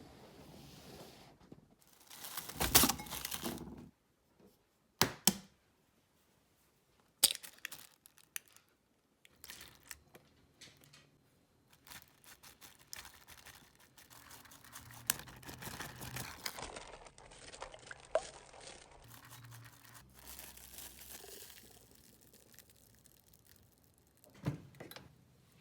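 Kitchen preparation sounds: crinkling and tearing, with scattered clicks and knocks, the loudest a rustling burst about two seconds in.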